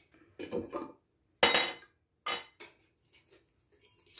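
Skincare product bottles and jars being handled, clinking and knocking: a few separate knocks, the sharpest about a second and a half in and another a little after two seconds.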